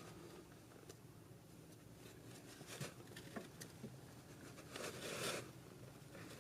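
Faint handling noises as a plastic sensor is worked by hand into its slotted bore: a few small clicks and taps, with a brief rustling scrape about five seconds in.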